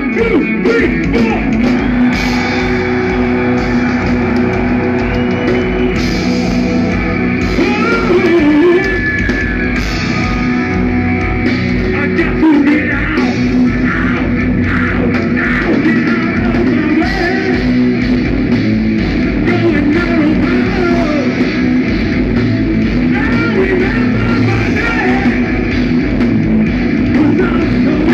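Progressive metal band playing live: distorted guitar, bass, drums and keyboards with a singer, loud and continuous, heard from within the crowd.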